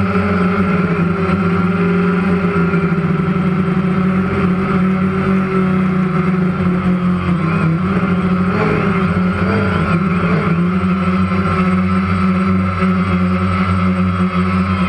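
Motors and propellers of the radio-controlled aircraft carrying the camera, a steady hum and whine heard from on board. The pitch wavers briefly about two-thirds of the way through as the aircraft manoeuvres.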